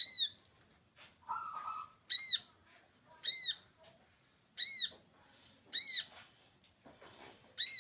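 Six short, sharp chirps, each rising and falling in pitch, repeated about once a second or a little slower: a 'cit' bird call used to lure birds.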